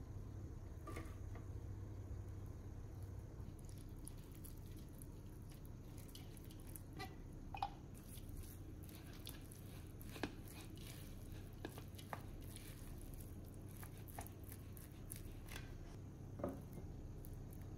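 Cooked rice being scooped and mixed with seasoned wakame seaweed in a glass bowl: quiet moist sounds of the rice being worked, with a few short clicks and taps of the spatula and rice paddle against the bowl, over a faint steady low hum.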